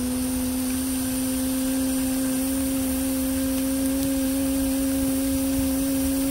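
A single steady low tone, nearly pure, held throughout and rising very slightly in pitch.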